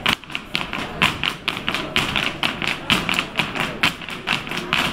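Irish dancers' hard shoes striking a wooden dance floor: a quick, uneven rhythm of sharp clicks and heavier stamps, several a second, from a group of dancers.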